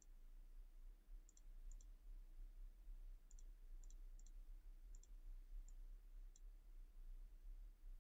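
Faint computer mouse clicks over near-silent room tone: about nine scattered clicks, each a quick press-and-release pair.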